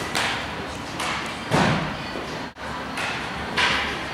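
Softballs thudding against a catcher's gear and glove as she blocks and receives them, a few dull impacts with the loudest about a second and a half in, over steady background noise.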